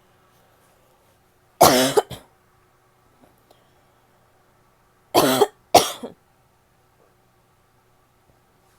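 A woman's barking cough: a harsh double cough about a second and a half in, then two more barking coughs in quick succession about five seconds in.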